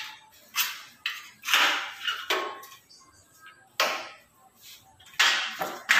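Aluminium sliding-door frame profiles being handled and fitted against a wall: irregular sharp knocks and scrapes, about seven of them, each ringing briefly and fading fast.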